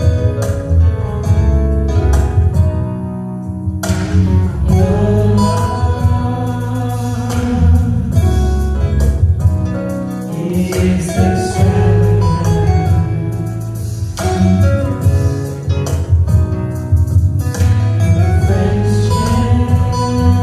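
Worship music with guitar leading and a steady bass, in an instrumental passage of a gospel song.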